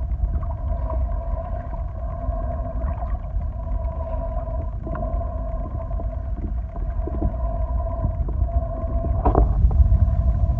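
Muffled underwater sound picked up by a phone held underwater: a low rumble of moving water with a steady hum and scattered small clicks, and one sharper crackle about nine seconds in.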